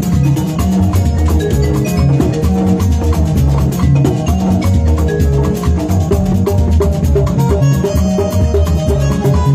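Live band music: a Yamaha portable electronic keyboard played with both hands over drums and percussion, with a steady rhythm.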